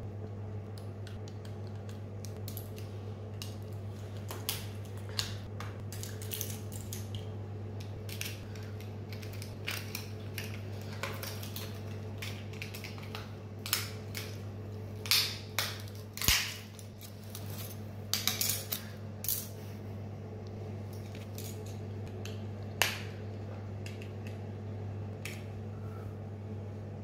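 Scattered small clicks, snaps and taps of a mobile phone's plastic housing and parts being pried and handled with a screwdriver, loudest in a cluster in the middle, over a steady low hum.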